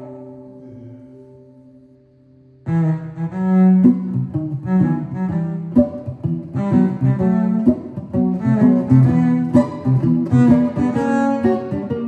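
Cello and 10-string bandolim playing a duo: held notes fade away almost to nothing, then about two and a half seconds in both come back in together, the cello bowing low sustained lines under quick plucked bandolim notes.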